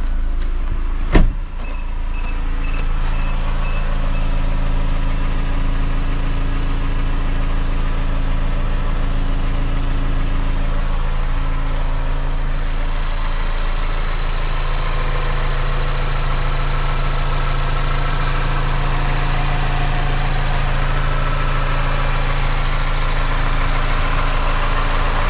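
Warm Mazda Skyactiv-G direct-injection four-cylinder petrol engine idling steadily, the normal warm-idle sound. About a second in a car door shuts with a single loud thump. From about halfway, with the open engine bay close by, the idle takes on more high-pitched ticking, which is the high-pressure fuel pump's normal clicking.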